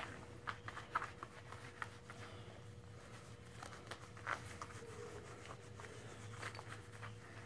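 Faint rustling and scratching of rubber-nubbed HandsOn grooming gloves rubbing a horse's forelock and head, in scattered short strokes, over a steady low hum.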